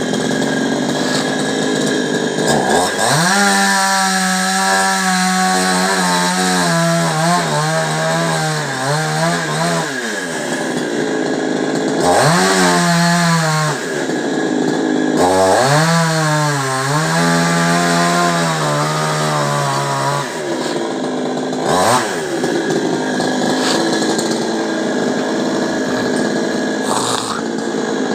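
Chainsaw revved up in three long bursts, its pitch sagging and wavering as the chain bites into a coconut trunk, running lower between the bursts, with a brief rev near the end.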